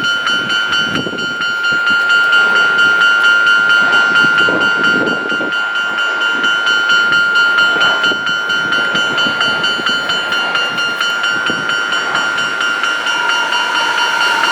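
Japanese railroad crossing warning bell ringing in a fast, even repeating pattern of high chimes while a train passes with a rumble. A second, lower bell tone joins near the end. The audio is sped up to double speed.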